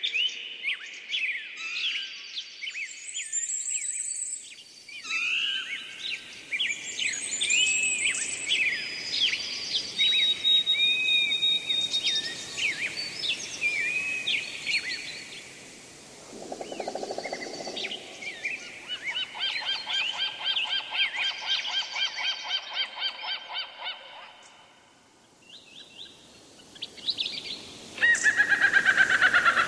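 Birds chirping and calling: a busy mix of short whistled chirps and fast repeated trills, with a brief lull shortly before the end.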